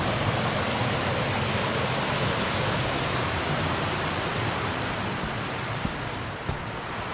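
Steady rush of a rocky creek and its small waterfalls, easing off slightly in the second half, with two faint knocks about six seconds in.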